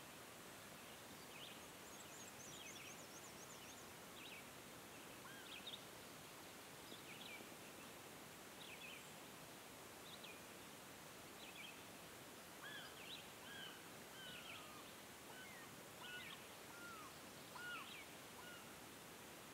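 Near silence with a faint steady hiss, over which small birds chirp faintly and sparsely, short high notes every second or so. About halfway through, a second run of short falling notes, slightly lower in pitch, joins in.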